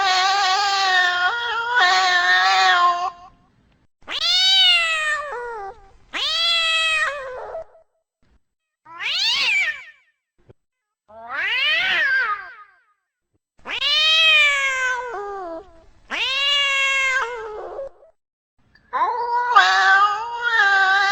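Domestic cat meowing over and over: about eight drawn-out meows with short gaps between, each rising and then falling in pitch, the first and last the longest.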